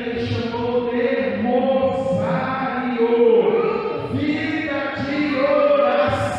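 Slow singing in long held notes, the melody moving to a new note about once a second.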